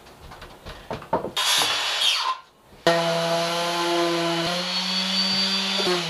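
A few handling knocks of wood, a short burst of noise, then an electric random orbital sander running steadily on a wooden door from about three seconds in, winding down near the end.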